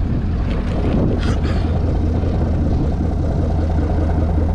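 Pontiac G8's LS V8 idling steadily, heard at the exhaust tip: a deep, even exhaust note from a stock exhaust with the muffler and resonator deleted.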